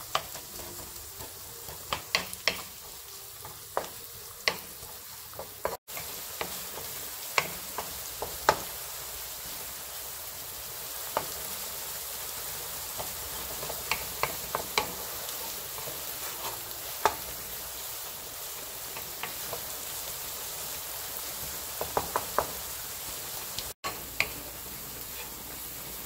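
Chopped onion and garlic sizzling in oil in a nonstick frying pan, stirred with a wooden spoon that scrapes and taps the pan every second or so. The sound drops out for an instant twice.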